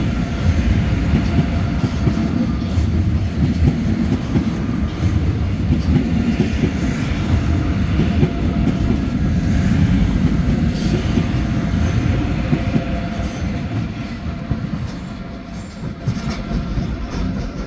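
ICE 3 (class 403) high-speed electric train in double traction pulling out of the station past the platform. Its wheels rumble and clatter over the rail joints and points, with a faint steady whine above the rumble. The sound fades over the last few seconds as the train draws away.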